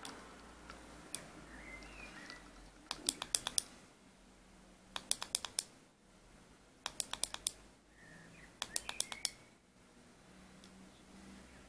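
Button clicks on an SMY 75 mini vape box mod: four quick bursts of about five presses each, cycling the mod between its wattage and temperature modes.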